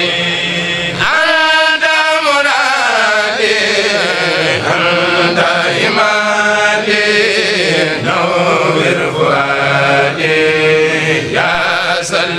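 Mouride kourel chanting Arabic devotional verses in long drawn-out sung phrases, with a short break between phrases every three or four seconds.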